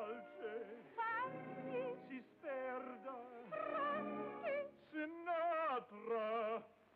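Operatic duet in comic style: a man and a woman trade sung phrases, their voices wavering with wide vibrato.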